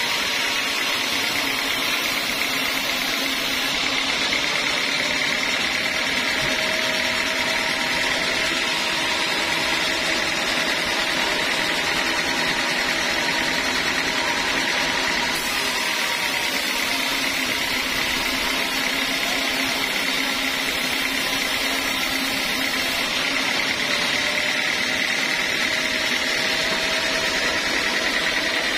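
Homemade band sawmill running steadily, its band blade cutting lengthwise through a teak log with an even, unchanging mechanical noise.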